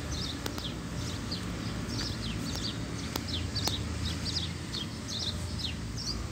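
Small birds chirping steadily, many short high down-slurred chirps a second, with a few sharp clicks in between.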